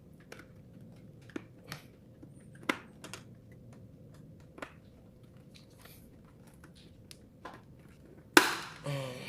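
Scattered light plastic clicks and knocks as a flat visor is worked onto a KYT Vendetta 2 helmet's ratchet mount, then one loud snap a little over eight seconds in: the visor clicking into place, the sound that tells it is seated.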